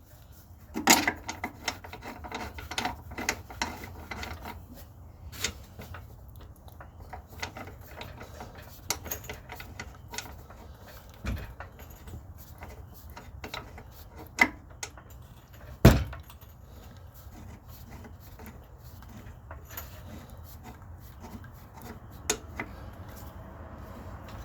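Scattered clinks, knocks and rubbing of hand tools and metal parts while an engine mount's bolts are worked into place. There is a run of clatter in the first few seconds and one loud knock about two-thirds of the way through.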